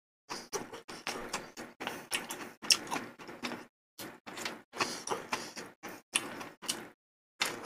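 Close-miked eating sounds: slurping malatang broth from a spoon and chewing, in a string of short irregular sounds with brief gaps between them.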